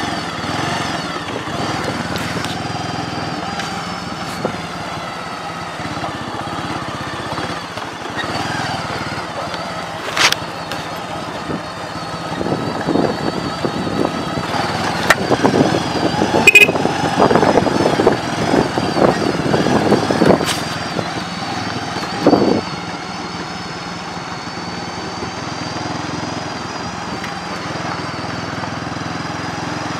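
Motorcycle engine running while riding on a gravel road, with steady road and wind noise. From about twelve seconds in it turns louder and rougher for roughly ten seconds, with several sharp knocks and rattles.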